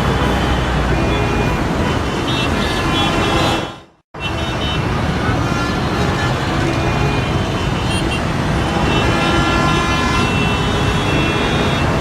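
City street traffic: cars and other motor vehicles passing steadily, with car horns sounding as steady high tones a couple of seconds in and again near the end. The sound fades out just before four seconds in and cuts straight back in after a brief gap.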